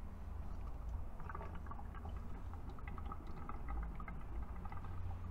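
Fork oil draining from an upturned motorcycle fork tube into a container. Irregular dripping and trickling starts about a second in, over a steady low hum.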